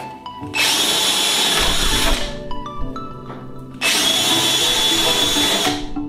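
Cordless drill boring holes through aluminium wing skin, in two bursts of about one and a half to two seconds each, with a steady high whine.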